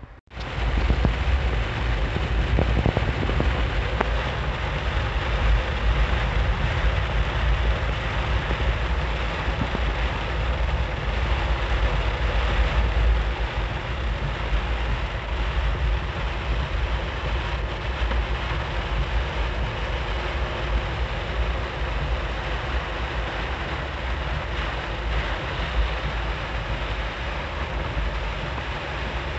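Heavy rain falling on a Jeep's roof and windshield, heard from inside the cabin while driving. Under it runs a steady low rumble of engine and road noise.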